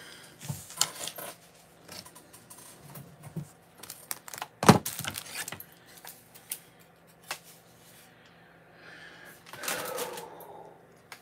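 Kitchen utensils and objects handled on a counter: scattered clicks and clatter, with one loud, sharp knock a little under five seconds in and a rustle near the end.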